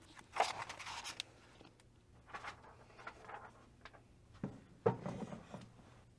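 Hardbound book being handled: pages rustling as it is leafed through, then two sharp knocks about four and a half seconds in as the book is closed and shifted back toward a shelf.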